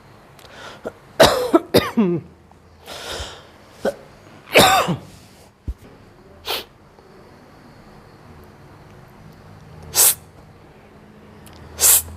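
A person coughing harshly: a quick run of about four coughs a second in, a longer drawn-out cough around four and a half seconds, then single coughs near ten seconds and at the end. It is the chronic cough of a patient who has been coughing for a year.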